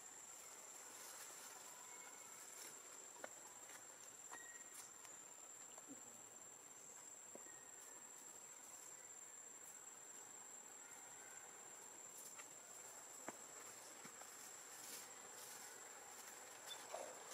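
Faint outdoor quiet with a steady high-pitched insect drone and a couple of faint clicks.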